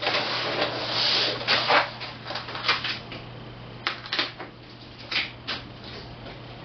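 A large plastic sheet and its paper backing being handled and turned over on a worktable: rustling and crackling, with several sharp clicks in the second half. A steady low hum runs underneath.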